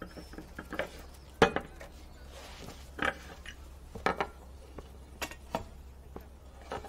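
China teacups and saucers clinking at a table: about eight separate light clinks, the loudest about a second and a half in.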